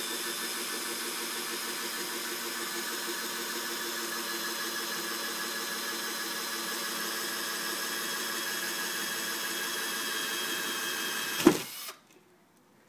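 Cordless drill running steadily as it bores a hole in a plywood board, then stopping with one sharp knock about eleven and a half seconds in.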